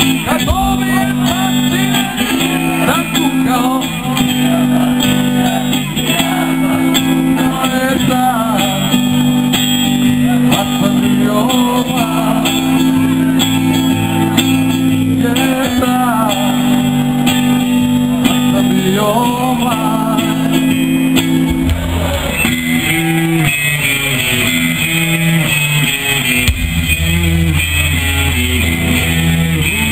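Live rock band playing: electric guitars holding chords under a male singer. About two-thirds of the way through, the music changes to a fuller, heavier section with a deeper bass.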